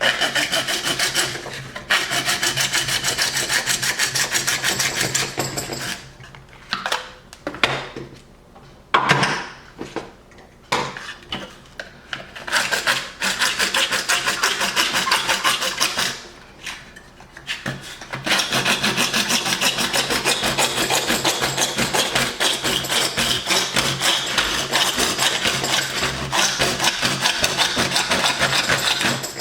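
Hand saw cutting, with fast back-and-forth rasping strokes. The strokes run steadily at first, turn sparse and broken for about ten seconds in the middle, then pick up steadily again.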